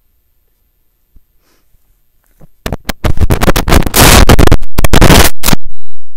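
Loud scratching and rubbing noise right at the microphone: a few separate scrapes about two and a half seconds in, then a dense run of about two and a half seconds that stops suddenly near the end.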